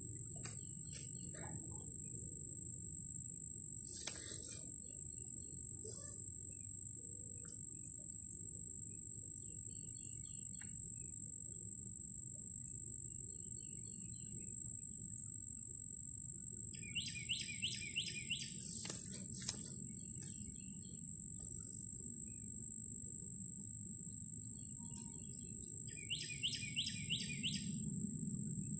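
A bird sings two short, rapid trills about ten seconds apart, heard over a steady low rumble and a constant high-pitched whine.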